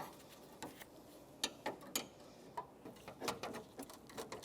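Faint, irregular small clicks and ticks of needle-nose pliers and plastic: the hood release cable sleeve's plastic tabs being squeezed and worked through the hood latch bracket.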